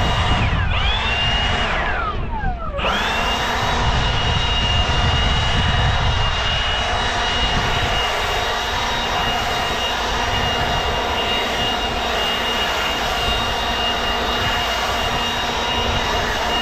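Battery-powered leaf blower running steadily at high speed with a high motor whine. About half a second in, the whine briefly dips. Around two to three seconds in, the blower eases off and its pitch falls sharply before spinning back up.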